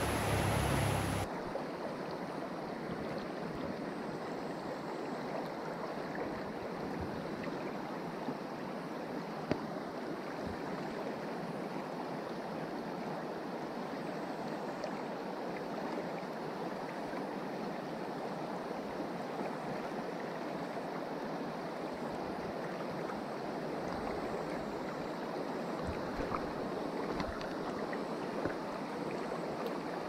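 Rushing water of a shallow creek rapid: a steady hiss of fast-flowing water, slightly quieter after a cut about a second in, with a couple of faint ticks around the middle.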